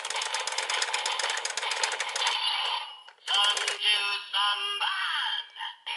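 Twokai Buckle transformation-belt toy sounding off: a fast run of rapid clicks lasting about two seconds, then a short burst of synthesized voice and jingle from its small speaker, the pitch swooping up and down.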